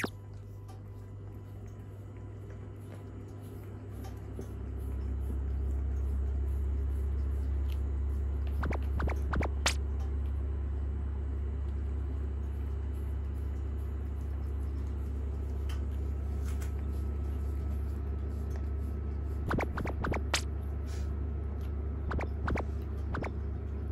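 A steady low hum that grows louder about five seconds in and then holds, with a few faint scattered clicks in two short clusters.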